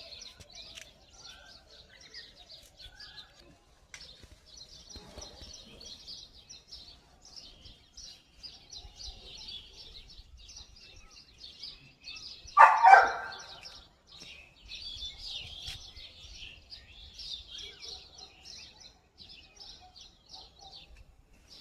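Small birds chirping and twittering almost continuously, with one louder, downward-falling call about 13 seconds in.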